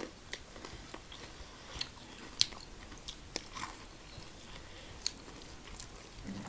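Close-up chewing and biting of fried chicken diamond, with scattered wet mouth clicks and a few sharp crunches.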